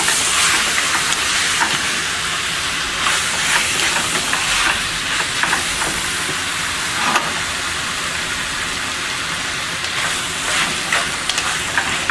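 Shrimp and tomato sizzling in hot oil in a pan, a steady hiss broken now and then by the short scrapes of a spoon stirring them.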